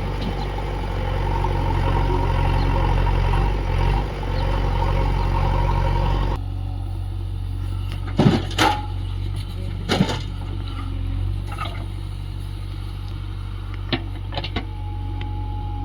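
A heavy diesel engine running steadily, its sound changing abruptly about six seconds in, followed by several sharp knocks or clanks.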